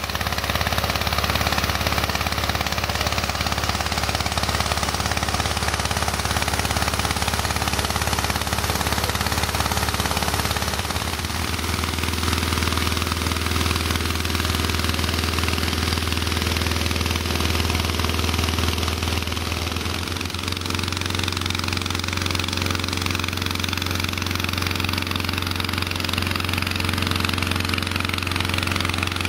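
Petrol-engine inflator fans running steadily at speed, blowing cold air into hot air balloon envelopes laid out on the ground. The engine hum shifts to a new pitch about a third of the way in and again past halfway.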